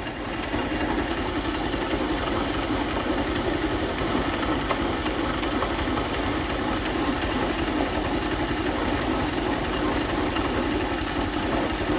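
Honda CG Start's single-cylinder engine idling steadily with a mechanical noise in the engine. The clutch lever is being worked, which changes the engine's sound.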